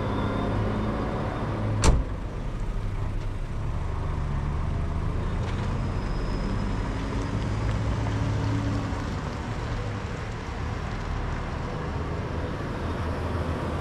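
A car door slammed shut once, about two seconds in, over the steady low hum of a car engine idling.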